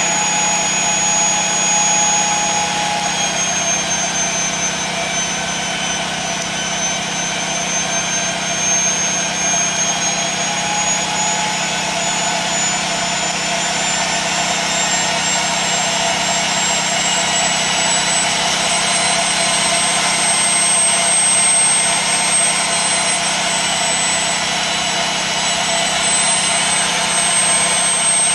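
Steam-driven Tesla turbine with a 3-inch rotor spinning at high speed: a high whine over a steady rush of steam. The whine dips slightly a few seconds in, then climbs gradually as the rotor speeds up.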